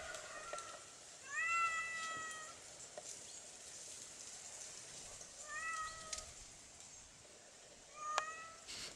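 A cat meowing three times: a longer call about a second in, then two shorter ones, each rising and then holding its pitch.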